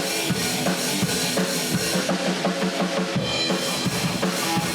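Music with a drum kit playing a steady beat, bass drum and snare, under sustained pitched instruments.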